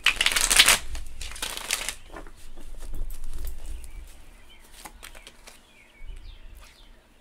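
A deck of tarot cards being shuffled by hand: two loud rustling shuffles in the first two seconds, then softer handling of the deck, and a card laid down on the cloth-covered table near the end.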